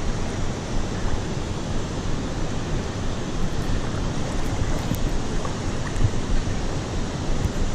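Steady rush of river current, with wind buffeting the microphone.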